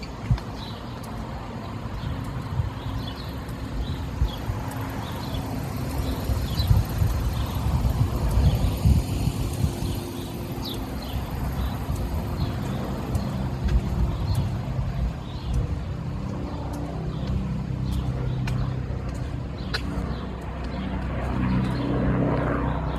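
City street traffic: vehicles running and passing, a low rumble that swells a few seconds in, with a steady engine hum through the second half and faint high chirps above it.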